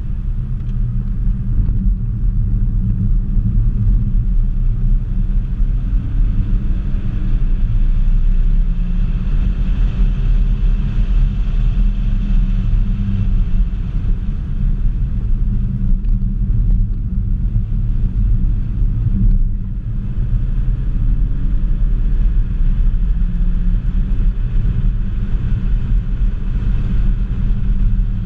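Ford Focus ST's turbocharged 2.0-litre four-cylinder heard from inside the cabin at track speed, under a dense low rumble of road and wind noise. The engine note climbs a couple of times, and the sound briefly drops about two-thirds of the way through.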